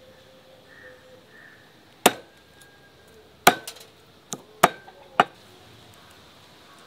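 Meat cleaver chopping raw chicken on a round wooden chopping board: five or six sharp, irregularly spaced chops starting about two seconds in, the louder ones followed by a brief ring.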